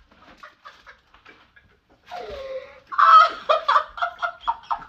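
A person laughing in a high, cackling way. Faint giggles come first, then a short squeal about two seconds in, then a loud run of rapid bursts of laughter, about five a second.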